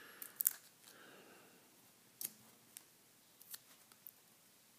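Faint crackles and snaps of sticky tape being torn and pressed onto folded paper pieces, the loudest about half a second in, then a few softer ticks.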